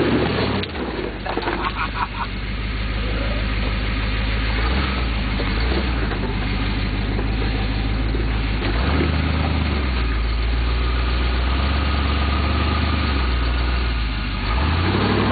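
Ford pickup truck's engine running at low speed while crawling over rocks, its pitch rising and falling a few times as the throttle is worked.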